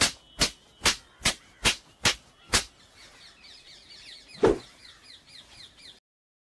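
Seven sharp clicks or knocks in an even rhythm, a little over two a second, then faint bird chirping with one louder knock partway through; the sound cuts off suddenly near the end.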